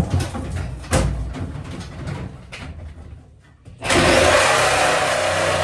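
Knocks and rattles of handling inside a wooden compartment, then, about four seconds in, a handheld corded power tool starts and runs steadily at speed.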